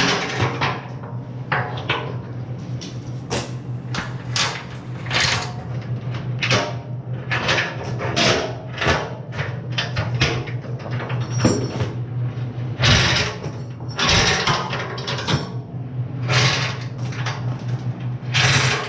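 Electric arc welding crackling in irregular runs over a steady electrical hum, as weld is laid into the crack in a hardened-steel bucket cutting edge.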